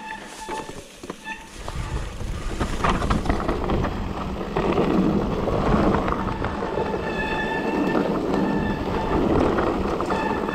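Mountain bike riding down a rough trail: tyre noise, rattling over the ground and wind on the microphone, louder from about two seconds in. A steady high-pitched buzz from the bike is heard near the start and comes back later.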